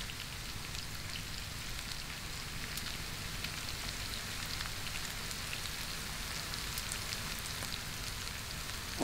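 Onions, carrots and garlic sizzling in oil in a stainless steel pan, a steady fine crackle: the vegetables frying gently into a sofrito.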